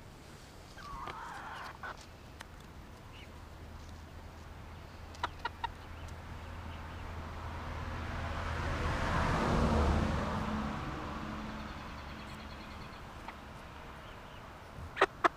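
Young hens clucking softly, with sharp pecking taps close by: three about five seconds in and louder ones near the end. In the middle a rushing sound swells to a peak about ten seconds in and fades away, like a vehicle passing on a nearby road.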